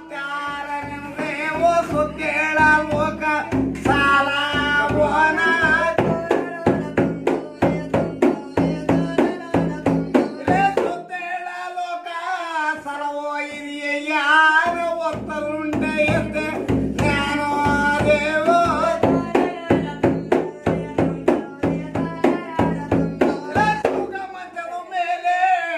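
A man sings a devotional song to the god Beereshwara while beating a large hand-held frame drum. The strokes come in quick runs under the voice.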